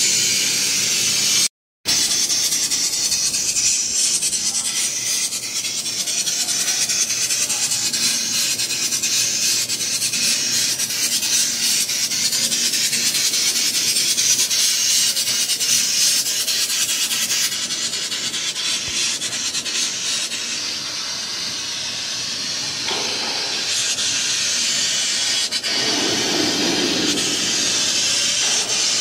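3 kW fiber laser cutting machine cutting steel sheet: a steady, loud hiss from the cutting head's gas jet as it burns through the metal. The sound drops out for a split second near the start, and a deeper rushing sound joins briefly near the end.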